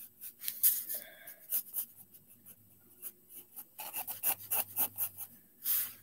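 Pencil scratching on sketchbook paper in short, irregular strokes, coming quicker about four seconds in, with one longer stroke near the end.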